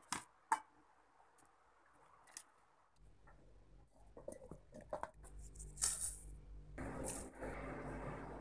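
Kitchen handling sounds: two sharp clicks, then chopped tomatoes tipped from a bowl into a steel mixer-grinder jar, with a run of knocks and clattering that grows denser near the end.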